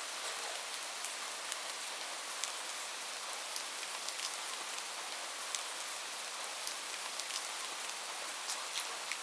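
Light rain falling steadily: a soft, even hiss with many separate drops ticking on a surface.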